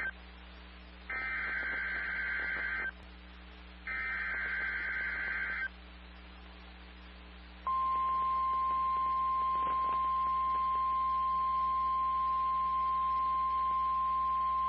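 Emergency Alert System SAME header: the tail of one digital data burst and then two more harsh, buzzing data bursts of about two seconds each, a second apart. After a short pause, about 7.7 s in, the steady single-pitch NOAA Weather Radio warning alarm tone (1050 Hz) begins and holds, announcing a severe thunderstorm warning.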